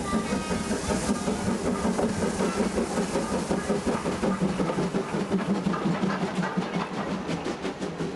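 A train running past at close range: a steady low running note with wheels clattering over rail joints. The clatter becomes rapid and even in the last couple of seconds.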